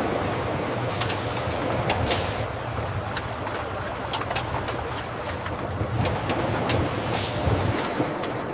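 Factory processing machinery running: a steady low mechanical hum with scattered sharp clicks and two longer hissing bursts, about two seconds in and again near the end.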